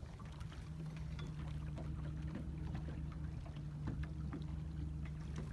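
Motorboat engine idling, a steady low hum, with a few faint knocks and water slaps.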